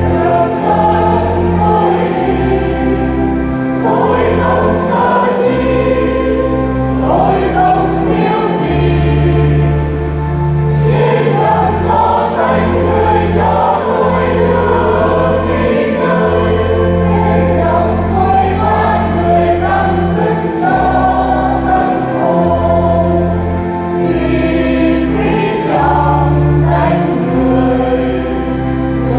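Church choir singing a Vietnamese Catholic hymn to instrumental accompaniment, with long held bass notes beneath the voices.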